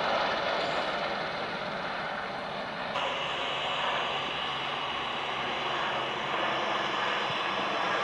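Airbus H130 (EC130 T2) helicopter flying high overhead: a steady rushing noise of its turbine and rotors, without a distinct blade beat. The sound shifts abruptly about three seconds in, then carries on steadily.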